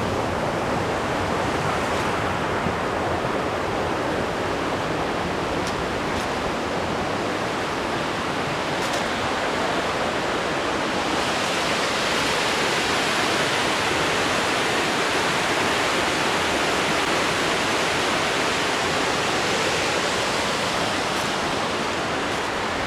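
Rushing water of Crabtree Falls' cascades tumbling down the rock, a steady rush that grows brighter and fuller about halfway through.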